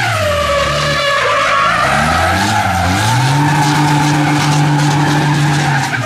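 MAN race truck's diesel engine revving hard while its rear tyres spin and squeal. The engine note drops at the start, then climbs and holds high from about three seconds in, with tyre squeal throughout.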